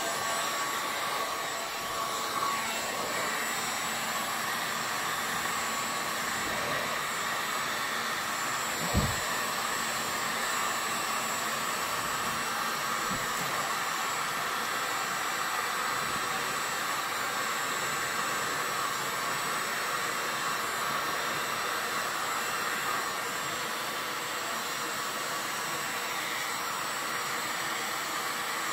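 Handheld heat gun blowing steadily over wet epoxy resin, a level blowing hiss with a faint steady whine in it. A single brief thump comes about nine seconds in.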